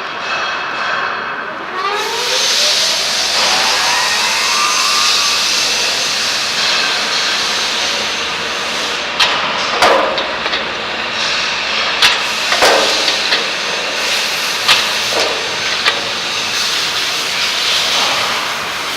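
SIMA CEL45 rebar cutting machine running: its electric motor and drive make a steady rushing noise, with a rising whine as it speeds up early on. Several sharp clanks come in the second half as the blades cut through bars.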